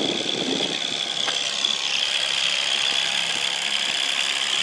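Boat's outboard motor running steadily while trolling, a constant high whine over a steady hiss.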